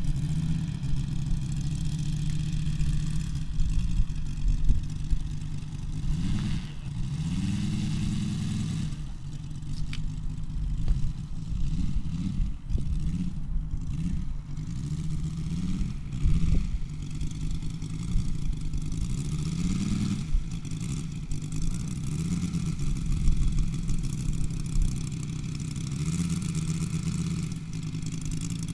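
Moki 250 radial engine of a large model Yak-11 idling and being revved up and down again several times while the plane taxis on the grass.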